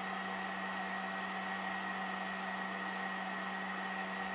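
Electric heat gun running steadily on its low setting: an even whoosh of blown air with a steady low hum.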